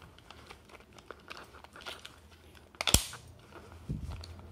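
Handling noise from a tape measure being unclipped from a tool belt: light rustling and small clicks, with one sharp click about three seconds in and a dull bump near the end.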